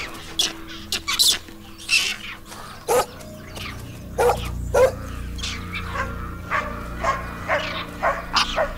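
A pack of feral dogs barking: about fifteen short, sharp barks, roughly two a second at irregular spacing, from more than one dog.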